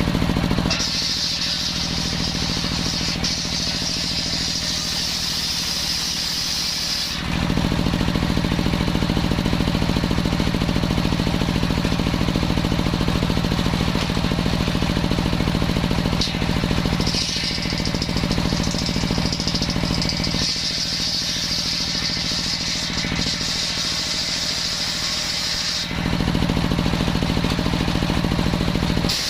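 Engine-driven circular saw running steadily and cutting coconut palm wood twice. A high-pitched cutting whine comes in from about a second in to about seven seconds, and again from about seventeen to twenty-six seconds, as the blade passes through the log.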